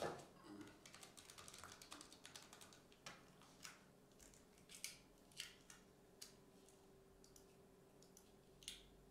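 Quiet typing on a computer keyboard, a quick run of key clicks over the first few seconds, followed by scattered single clicks of a computer mouse.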